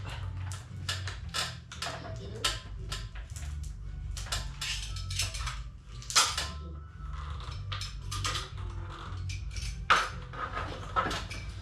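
Plastic cable trunking and cables clattering, scraping and knocking as they are pulled down from the wall and ceiling, with a run of irregular clicks and two sharper knocks about six and ten seconds in.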